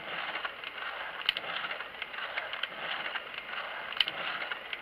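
3D-printed plastic Subaru EJ20 cutaway model turned over by a small electric motor in its oil pan: a steady plastic whirring and rattling of its timing belts, pulleys and moving parts, with a sharp click about a second in and again near the end. A protruding piece of plastic underneath is rubbing, which the builder says makes the top of the engine jump.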